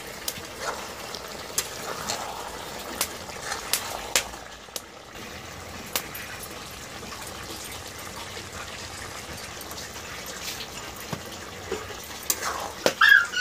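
Cabbage and potato curry simmering in an iron kadai, a steady bubbling with scattered sharp pops.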